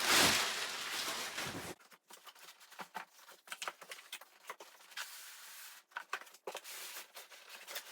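Cardboard shipping box and packing being handled: a loud scraping rustle for the first two seconds or so, then lighter crinkles, taps and small clicks of packaging being moved about.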